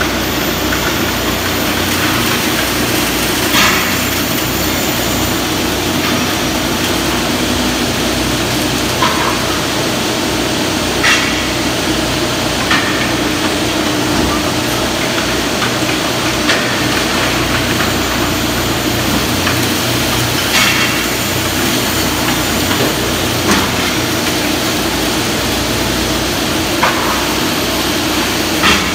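Industrial wood finger-jointing line running: a steady machine noise with sharp clacks every few seconds.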